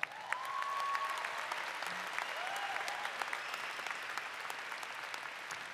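Large audience applauding, swelling quickly to a peak about a second in and then slowly fading, with a few faint cheers on top.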